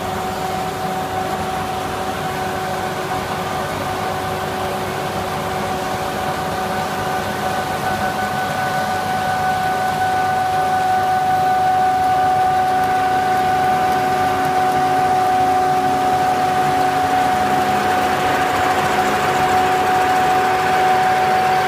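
Horizontal multi-spindle gang drilling machine running, its row of drill spindles cutting holes through a round steel bar: a steady mechanical whine over a grinding hum that grows a little louder about halfway through as the bits cut into the bar.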